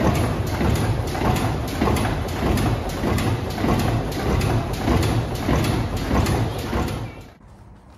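Stationary steam engine running, its rods and valve gear clanking in a quick, even beat; it cuts off abruptly about seven seconds in.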